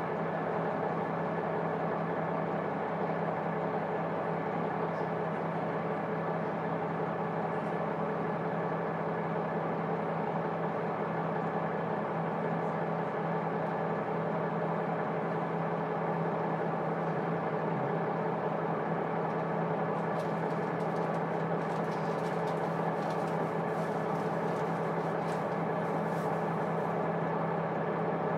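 Underfloor diesel engine of a KiHa 200 series railcar heard from the cabin seat directly above it, windows closed: the engine runs at a steady, unchanging note. A few faint clicks come in near the end.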